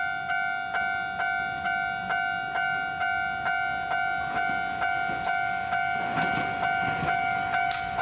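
Japanese level-crossing warning bell ringing, a two-tone electronic ding struck a little over twice a second. Near the end the approaching tram's rumble and rattle rise beneath it.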